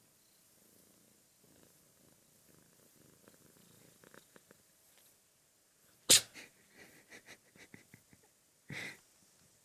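A domestic cat purring softly, then sneezing sharply about six seconds in, followed by small snuffling clicks and a second, quieter sneeze near the end.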